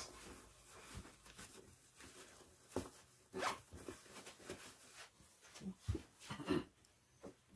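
The zipper of an ECOSA foam mattress cover being pulled along in a few short strokes, with fabric rustling as the cover is closed.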